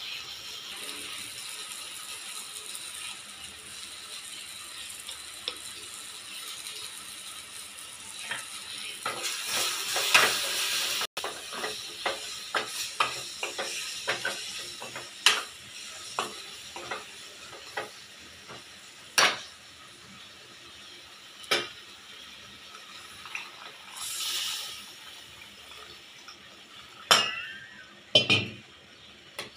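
Onion-tomato masala sizzling in a stainless steel kadai as a spoon stirs it, scraping and clicking against the pan. About eleven seconds in the sizzle stops, and spoon clicks and knocks against the pan go on at uneven intervals.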